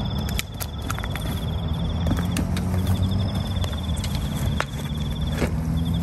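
A cricket-like insect trilling in long runs of rapid pulses at one high pitch, stopping and starting, over a steady low hum. Scattered sharp taps and knocks come from a freshly landed fish flopping on bare ground.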